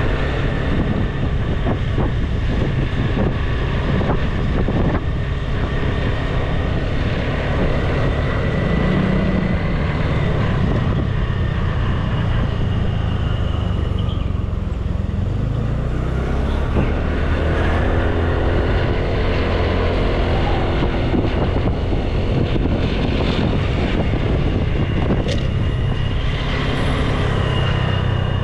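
Motorbike engine running with wind and road noise as it rides along. About halfway through, the engine note climbs as it speeds up.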